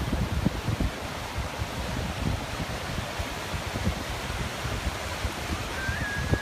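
Ocean surf washing on a beach, with wind buffeting the microphone in an uneven low rumble.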